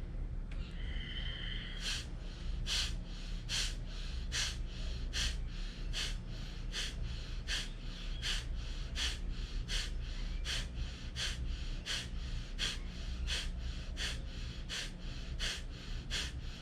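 Kapalbhati breathing: a short nasal inhale, then from about two seconds in a steady run of sharp, forced exhalations through the nose, about one and a half a second, each followed by a passive inhale. A steady low hum runs underneath.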